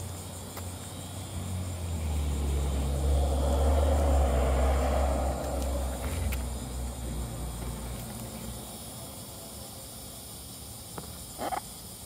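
A road vehicle passing by, growing louder to a peak about four seconds in and then fading away over the next few seconds.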